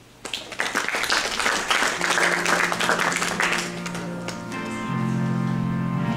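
Small audience applauding for about four seconds. About two seconds in, an electronic keyboard starts holding sustained notes under the clapping, and as the applause fades a slow keyboard-and-acoustic-guitar introduction takes over.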